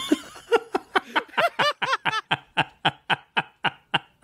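A person laughing in a long string of quick, rhythmic bursts, about five a second, tapering off near the end.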